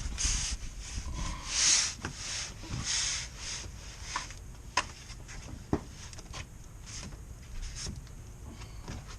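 Scraping and rubbing handling noise in several short swishes, then two sharp clicks about five and six seconds in.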